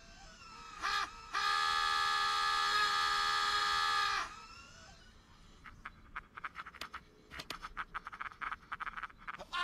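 A cartoon scream from an animated Woody: a short yelp about a second in, then one loud, long scream held on a steady pitch for about three seconds that cuts off suddenly. In the second half, a run of short, quieter sounds follows in quick succession.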